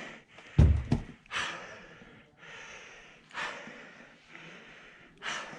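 A man breathing hard and exhaling heavily, about three long breaths, winded from trudging through deep snow. A loud thump about half a second in.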